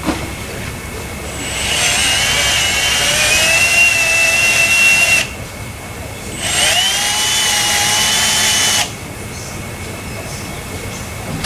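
Power tool run in two bursts of a few seconds each on a seized, spinning wheel lug stud. Each burst has a high whine that rises as it starts and then holds steady.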